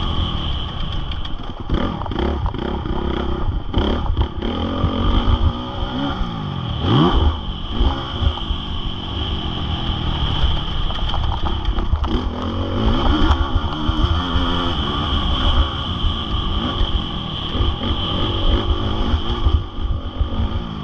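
Honda CRF450R single-cylinder four-stroke motocross engine under riding, revving up and down repeatedly, with one sharp rev rise about seven seconds in. A heavy low rumble runs under it throughout.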